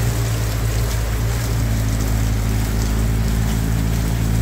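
Heavy tropical downpour pouring steadily onto a street and flooded road, with a steady low mechanical hum underneath.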